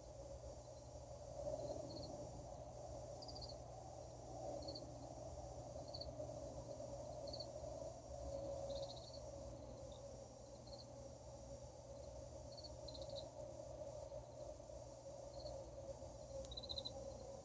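A steady, wavering drone, the unexplained 'strange sound' heard in the night, with a low rumble beneath it. Crickets give short, scattered chirps over it.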